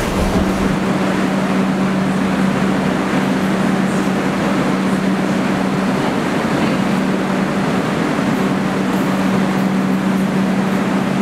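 R62 subway train standing at an underground platform, giving a steady loud hum with one constant low tone over a wash of station noise.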